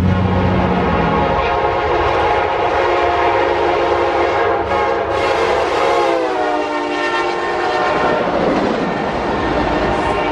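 Passenger locomotive's air horn sounding a long multi-note chord as the train passes at speed, over the rumble of the train. The chord drops in pitch about six seconds in as the locomotive goes by.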